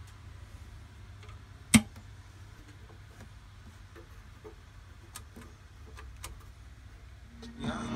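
Faint clicks of a vintage Pioneer SA-5300 amplifier's controls and an iPod being worked by hand, with one sharp click about two seconds in, over a low steady hum. Music starts playing through the speakers near the end.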